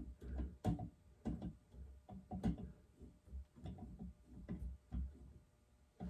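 Small handheld copper tubing cutter being turned around a copper pipe, its cutting wheel scoring the pipe: a string of faint, irregular clicks and scrapes.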